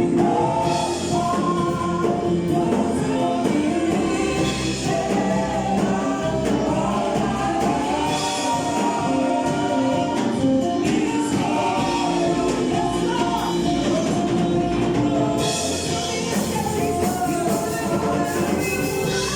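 Gospel choir singing with instrumental backing: several voices holding sustained, moving lines over steady bass notes.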